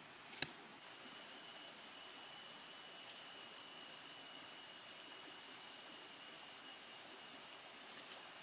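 Faint, steady high-pitched insect drone in the forest, one thin tone with higher overtones that wavers slightly, and a single sharp click about half a second in.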